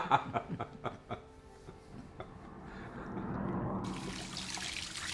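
A man's short laughter at the start, then water running steadily, like a sink tap in the shop, growing louder from about two seconds in.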